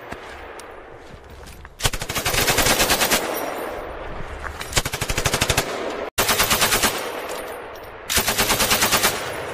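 Three bursts of rapid automatic gunfire, each a second or so long, about two seconds in, about six seconds in and near the end, each trailing off in a fading echo.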